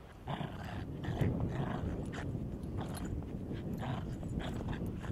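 Bichon Frise dogs play-growling at each other, a string of short growls and vocal bursts while they tussle in the snow.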